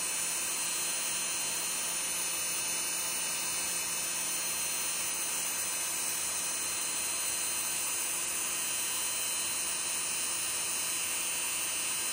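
Dremel rotary tool running steadily with an even motor whine, spinning a disc and magnet on its bit.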